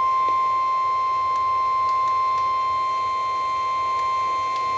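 NOAA Weather Radio warning alarm tone: a single steady, unbroken beep at about 1050 Hz, the signal that a weather warning broadcast is about to follow.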